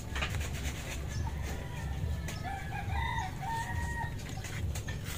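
A rooster crowing once, one long wavering call lasting about three seconds and starting about a second in.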